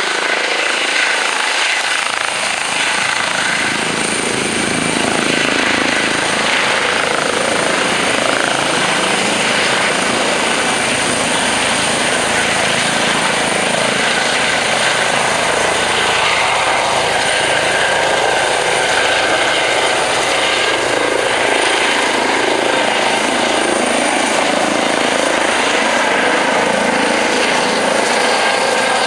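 Airbus Helicopters EC135 twin-turbine helicopter with a Fenestron ducted tail rotor taking off: steady, loud turbine whine and rotor noise as it lifts off the field and climbs overhead.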